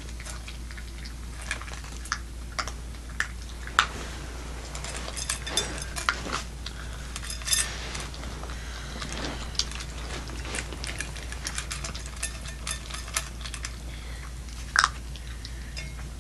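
Boston Terrier puppy eating from stainless steel bowls: irregular small clicks and clinks of food, teeth and tongue against the metal, over a steady low hum.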